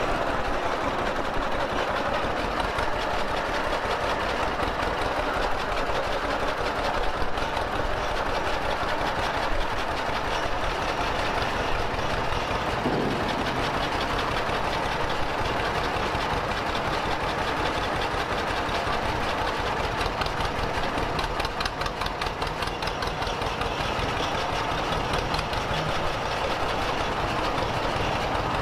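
Vintage John Deere two-cylinder tractor engine running at low speed with an even, rapid firing beat as the tractor creeps forward. It briefly goes softer about three quarters of the way in.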